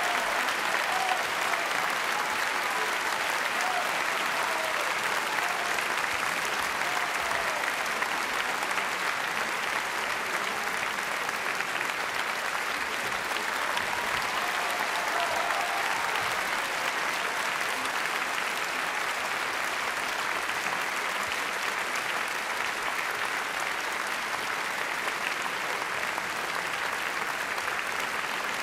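Theatre audience applauding steadily, a dense, even clapping that carries on without a break.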